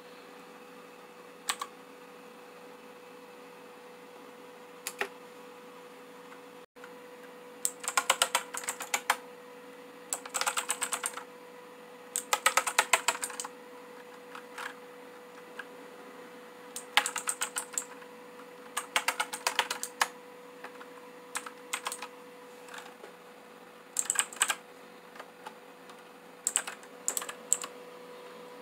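Rizum Z15 mechanical keyboard with clicky blue switches being typed on: a couple of single keystrokes, then repeated bursts of rapid key clicks about a second long, with short pauses between them.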